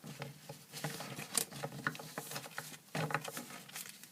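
A sheet of paper being handled and folded: irregular rustles, crinkles and small ticks, with a few louder crackles about three seconds in.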